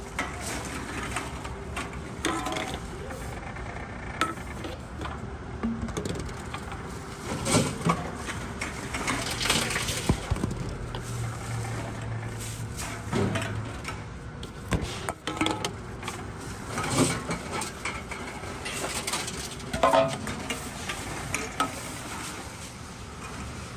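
Tomra T-90 reverse vending machine taking in empty aluminium cans and a plastic bottle: containers clatter and knock in the intake chamber, with many short sharp clunks. A low machine hum runs for a few seconds in the middle.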